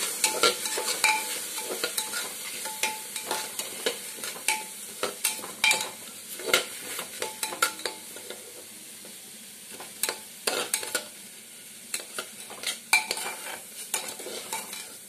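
Metal spatula scraping and clinking against the inside of a pressure cooker, stirring washed rice as it dry-roasts over the flame, with a hiss of sizzling from the damp grains that grows fainter over the first several seconds.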